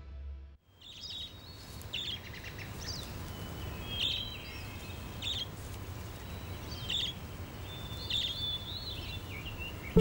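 Small songbirds calling with short, high chirps and brief trills, roughly one a second, over a soft steady woodland hiss.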